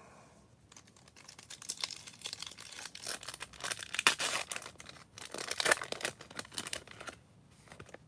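Foil wrapper of a Topps Chrome trading card pack being torn open and crinkled by hand: a run of crackling rips over several seconds, loudest about halfway through.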